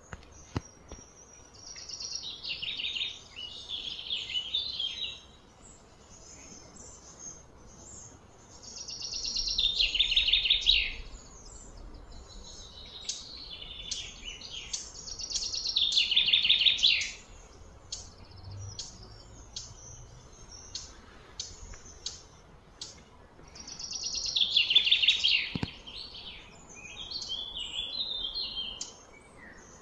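Birds singing: a loud, high trilling phrase about two seconds long that falls in pitch comes four times, with scattered short chirps in between.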